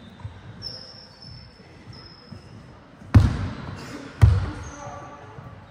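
Basketball bouncing on the court floor: two loud bounces about a second apart, each with a short echoing tail.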